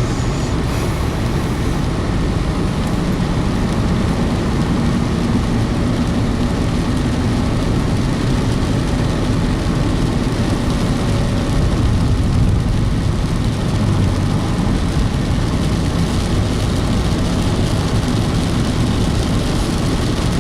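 Steady engine and road noise of a car driving slowly, heard from inside the cabin, with a faint low hum.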